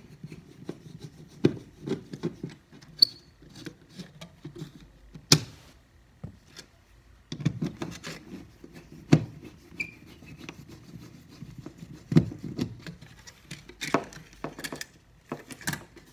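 Screwdriver backing out the screws that hold an old thermostat's base plate to the wall: scraping and rubbing with irregular sharp clicks and knocks as the tool and hands work the plate loose.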